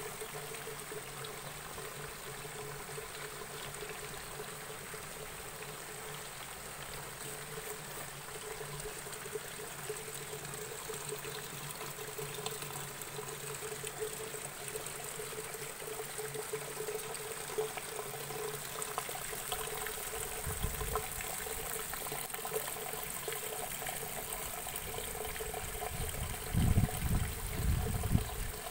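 Water trickling steadily out of the ends of hydroponic lettuce channels into the return trough, with a steady low hum underneath. A few low thumps come near the end.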